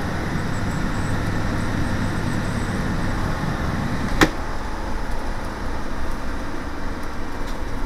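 Inside the cab of a 2017 IC Bus CE diesel school bus on the move: a steady low engine hum and road noise. A single sharp click comes about four seconds in, and the engine hum eases after it.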